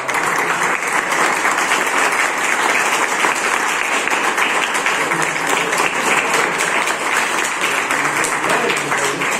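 A roomful of schoolchildren and adults applauding. The clapping breaks out all at once and keeps up steadily.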